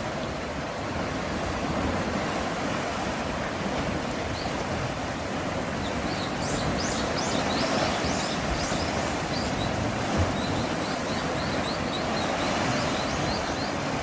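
Sea waves surging steadily along the shore. From about four seconds in, a small bird calls over it in quick runs of short, high chirps.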